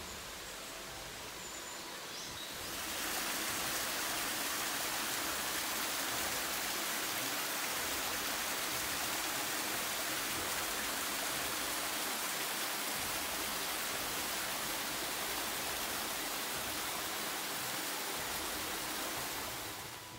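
Mountain stream running over rocks: a steady water hiss that grows louder about two and a half seconds in, holds even, and drops back near the end.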